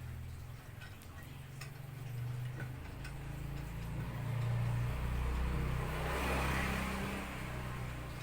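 A motor vehicle's engine running, growing louder through the middle and easing off near the end, like a vehicle passing close by.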